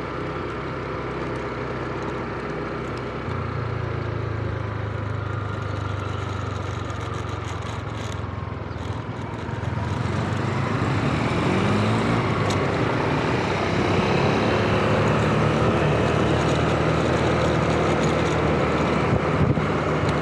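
Motor scooter's engine running steadily while being ridden, with wind and road noise over the microphone; it gets louder about halfway through as the scooter picks up speed.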